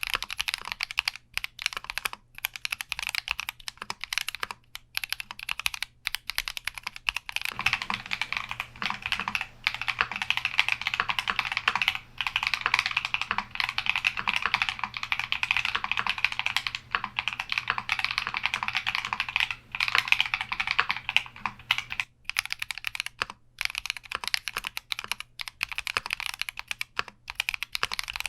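Continuous typing on a Keychron Q60 mechanical keyboard: a steady stream of key presses and clicks. It runs fast and dense through the middle and is sparser near the start and end.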